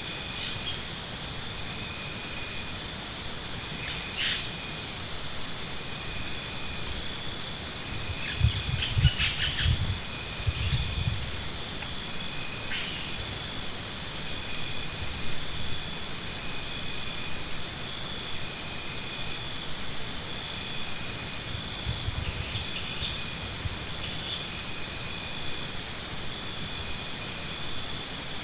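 Insects trilling in repeated bouts of several seconds, a fast high pulsing chirp that stops and starts, over a steady high-pitched hum. A few low rumbles come in around the middle.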